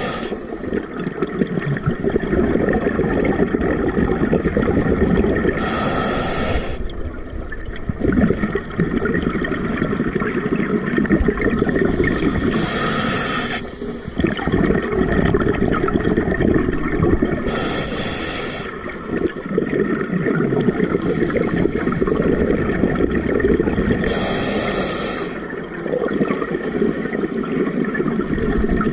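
Scuba diver breathing underwater through a regulator: a short hiss of inhalation about every six seconds, four times, each followed by a long stream of exhaled bubbles.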